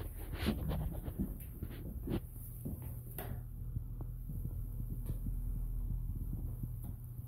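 A steady low hum with scattered soft knocks and clicks, the sound of someone walking through an empty room while handling the camera.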